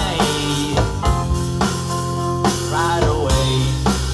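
Indie pop band playing live: drum kit, bass and synth keyboards.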